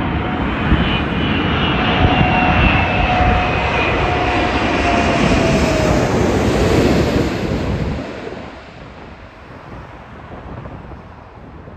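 Four-engine Emirates Airbus A380 passing low overhead on final approach: a loud jet rush with a whining tone that falls in pitch as the aircraft goes over. The sound drops away sharply about eight seconds in as it moves off toward the runway.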